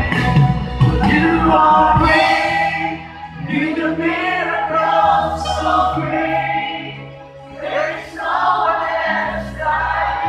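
A live worship song: several voices singing together through a PA system over amplified backing music with held bass notes.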